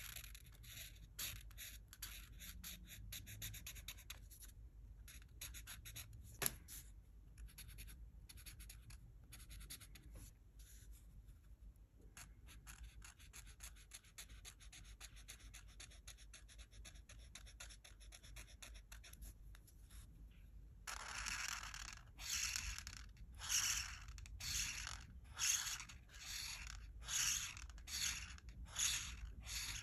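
Felt-tip art marker scratching over a colouring-book page in quick, light strokes, then about two-thirds of the way through in louder back-and-forth strokes, roughly one and a half a second. A single sharp click about six seconds in.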